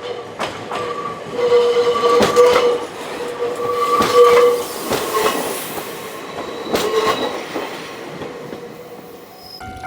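Hokuriku Railroad 7000 series electric train running past, its wheels clacking over rail joints with a few sharp clicks and a squealing tone that swells twice. Near the end a level-crossing bell starts ringing.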